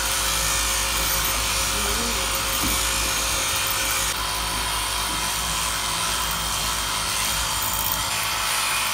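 Sheep-shearing handpiece, driven from the overhead shearing plant, running steadily as it cuts the fleece off a sheep.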